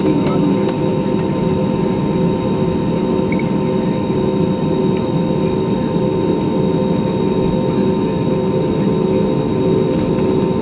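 Steady cabin noise of a jet airliner taxiing, heard inside the cabin over the wing: the turbofan engines at idle give an even rush with several steady humming tones.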